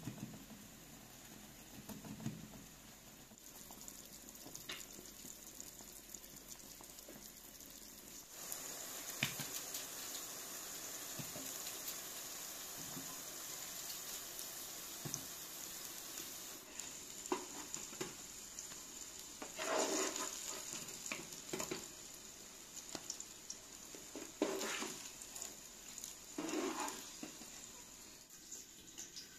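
Eggplant slices sizzling as they fry in oil in a pan, a steady hiss. After about the middle come several scraping knocks of a wooden spatula in the pan as the fried slices are lifted out.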